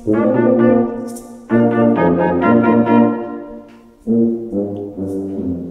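Brass ensemble playing loud held chords. Three chords start about a second and a half to two and a half seconds apart, each attacked together and then left to fade.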